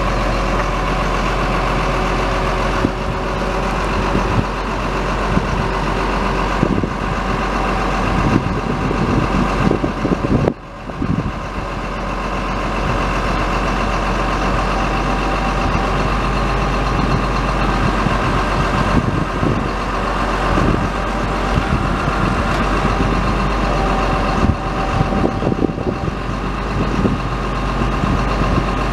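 Diesel engine idling steadily, with a brief drop in level about ten seconds in.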